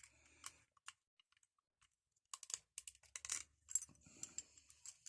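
Key turning in an old padlock that has just been freed up, unlocking it. Its mechanism gives a series of small clicks and rattles: a few at first, then a quick cluster from about two seconds in.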